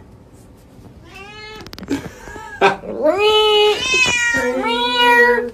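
Domestic cat meowing: a short meow about a second in, then long, drawn-out, loud yowls from about two and a half seconds in.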